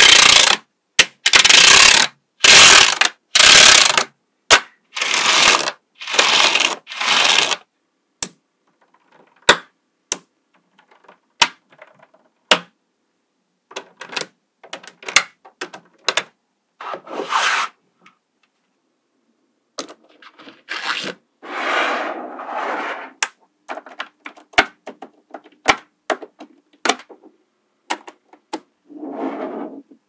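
Mini magnetic balls clicking as they snap onto one another, with bursts of rattling and scraping as clusters of balls are pushed and slid together. The rattling bursts come thickest in the first several seconds and again in the second half, separated by single sharp clicks.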